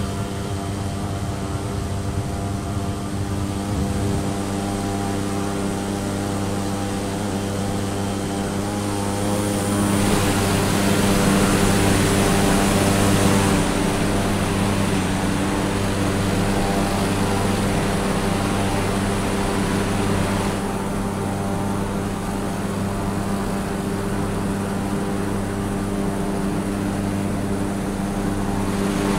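Cessna light aircraft's piston engine and propeller running steadily, with a broad rushing noise that swells in from about ten seconds in and falls away again around twenty seconds in.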